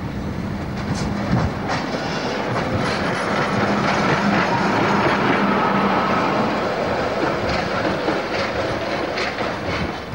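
Charleroi metro light-rail train running through the station, with a steady low hum that swells and then eases off as it passes, and its wheels clicking over rail joints several times.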